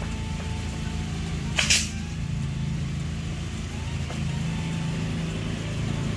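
A steady low engine hum, with one short, sharp hissing crack about a second and a half in, like a pneumatic nail gun firing on a fence job.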